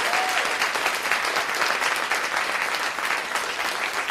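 Audience applauding, a dense patter of many hands clapping that slowly eases off toward the end.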